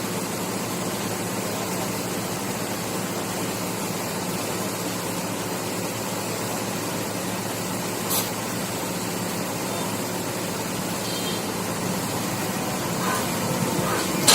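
Steady machinery hum from an engine running at a construction site, with one brief click about eight seconds in.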